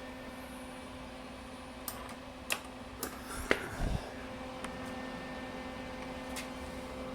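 Lincoln Electric MIG Pak 140 welder switched on and humming steadily, with a few scattered sharp clicks and a short low thump about three and a half seconds in.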